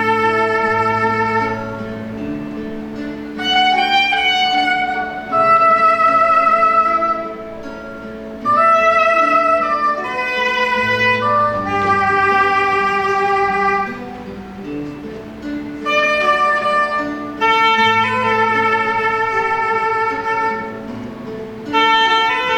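Soprano saxophone playing a slow melody of long held notes over a sustained accompaniment with low bass notes.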